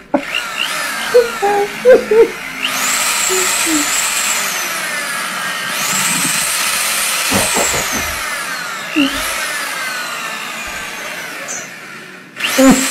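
Corded electric drill running steadily, its motor whine surging three times and sliding down in pitch after each surge.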